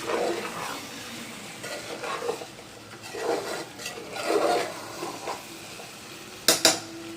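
A spoon stirring and scraping egg curry gravy in a pan, with a light sizzle in soft swells. Near the end come two sharp knocks close together, like the spoon hitting the pan.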